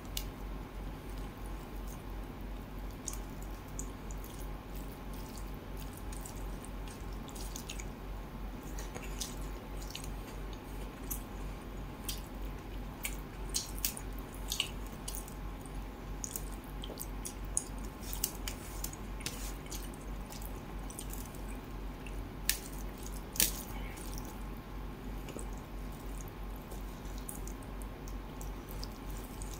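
Wet squishing and sharp little clicks of fingers mixing rice and coconut fish curry by hand in a steel plate, scattered irregularly and thickest in the middle, over a steady low hum.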